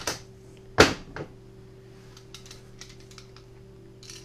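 Metal clacks of a Walther PPK pistol's slide being racked one-handed against a surface, with an empty magazine in, to clear the chambered round. There is a sharp click at the start and the loudest clack about a second in, followed by a few light clicks.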